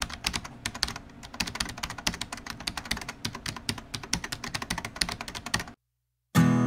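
Rapid run of keyboard typing clicks that stops suddenly a little before six seconds in. Acoustic guitar music starts just before the end.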